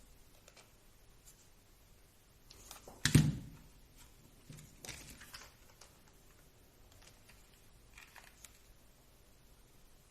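Small plastic RC car parts being handled on a bench: scattered light clicks and rattles, with one sharper knock about three seconds in.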